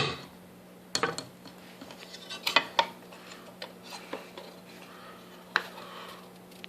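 Scattered light metallic clicks and clinks from hands working on the underside of a vintage Hoover Convertible upright vacuum with its motor off, around the belt and fan. The sharpest knocks come at the start, about a second in, twice around two and a half seconds, and once more near the end.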